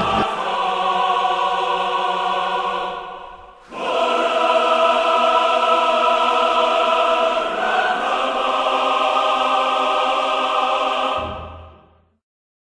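Background music with a choir singing long held chords. It dips briefly about three and a half seconds in, returns, and fades out near the end.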